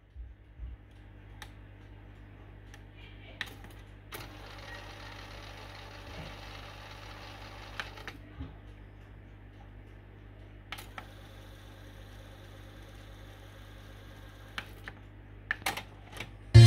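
Sony TC-K410 cassette deck's transport working: button clicks and mechanism clunks, with the tape spooling in rewind for about four seconds and then in fast-forward for about four seconds, over a low steady hum.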